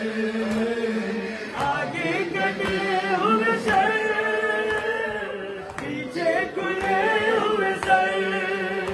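A male reciter chanting a noha (Shia mourning lament) into a microphone, with a crowd of mourners singing along in unison. Sharp slaps of chest-beating (matam) keep time about once a second.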